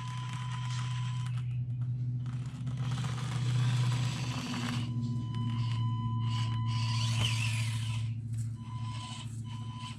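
Small electric motor and plastic gears of a 1/24-scale Axial SCX24 Deadbolt RC crawler whirring in two runs, about two seconds in and again about seven seconds in, over a steady low hum.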